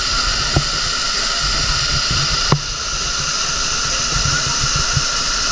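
Waterfall rushing: a steady, loud wash of falling water, with two brief knocks about half a second and two and a half seconds in.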